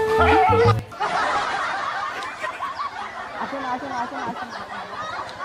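A short held flute-like music note that ends about a second in, then a dubbed laugh track of many people chuckling and laughing together.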